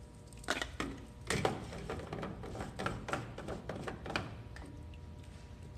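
Clicks and knocks of a plastic water-filter housing being handled and screwed back onto a tent washer's pipework, a cluster of them in the first four seconds, over a steady faint hum.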